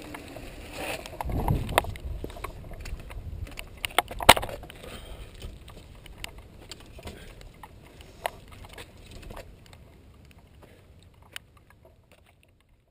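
Irregular clicks, rattles and knocks from a mountain bike and its camera boom mount, with a low rumble in the first two seconds and one sharp knock about four seconds in, dying away toward near quiet.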